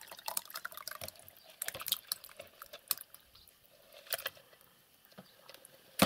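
Runny food with bits in it being tipped and dripping out of a plastic tub into a cup, with small clicks and knocks of plastic and spoon. A sharp knock comes right at the end.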